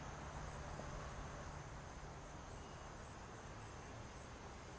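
Faint, steady outdoor background noise with a thin, continuous high-pitched whine and no distinct events.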